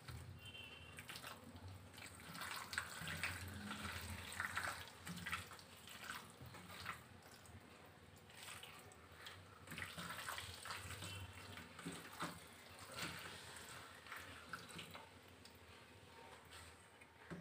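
A hand squishing raw chicken pieces through a thick yogurt marinade in a steel bowl: faint, irregular wet squelches.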